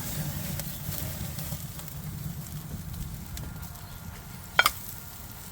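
Steak sizzling on a hot charcoal grill, a steady sizzle with faint crackles. A single brief, sharp sound stands out about four and a half seconds in.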